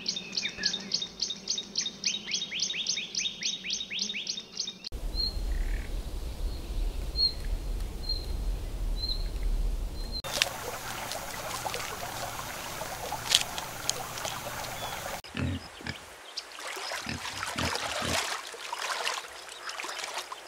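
Nature ambience that changes with each scene cut: first a fast regular run of high chirps, about four or five a second, then a low rumble with a few single chirps, then a hissy outdoor bed, and several short dull thumps near the end.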